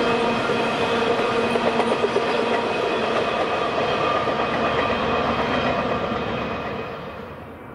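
Freight train of flatcars loaded with empty trailers rolling past, steel wheels clattering on the rail joints with a steady high ringing over the rumble. The sound fades near the end as the last cars pass and move away.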